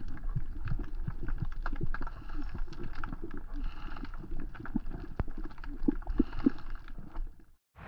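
Underwater reef ambience picked up through a camera housing: a steady low rumble with dense, irregular clicks and crackles, cutting off suddenly near the end.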